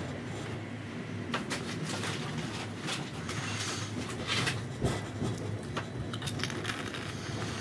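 Interior sound of a passenger train carriage rolling slowly through a station: a steady low rumble with irregular clicks, knocks and rattles from the wheels and the car's fittings.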